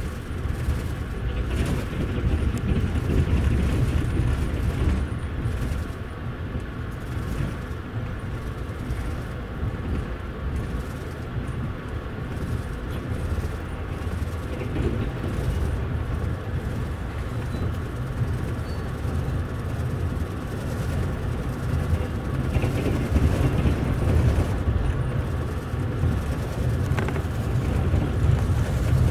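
Double-decker passenger train coach running along the track, heard from inside the upper deck: a steady low rumble with the wheels knocking over the rails, swelling a little at times.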